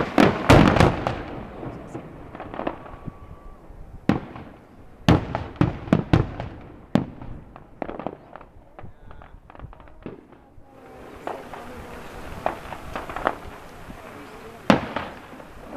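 Aerial fireworks shells bursting in a series of sharp bangs and crackles. They come in a dense run at the start and again about five to six seconds in, with lighter crackling after that and a single loud bang near the end.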